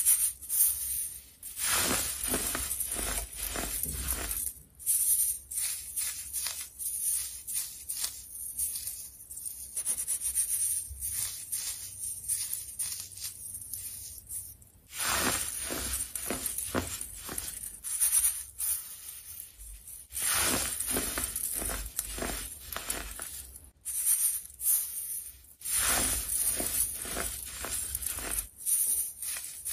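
Clumps of dyed baking soda crunching and crumbling as they are crushed and rubbed by hand through a metal mesh sieve: a dense, irregular gritty crackle with short pauses between handfuls.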